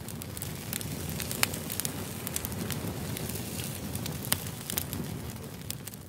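Steady crackling hiss with irregular sharp pops, a couple of them louder than the rest.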